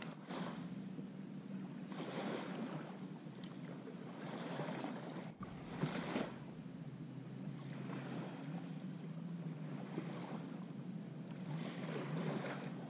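Small waves washing onto a sandy beach, with wind, rising and falling in soft swells every couple of seconds.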